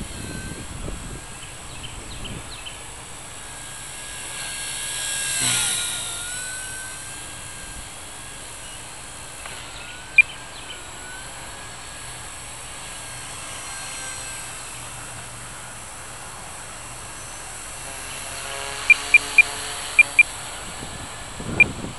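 Blade mCP X micro RC helicopter in flight: a thin motor and rotor whine that wavers up and down in pitch, swelling louder about five seconds in. Wind rumbles on the microphone, and a few short sharp chirps sound near the end.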